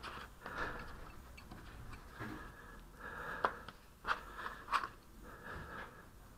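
Putty knife slicing and peeling the dried, skinned-over top off a lump of old window glazing putty: soft, irregular scraping and crackling, with a few sharp clicks a little past halfway.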